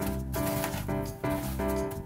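Background music of held pitched notes that change every fraction of a second over a steady bass.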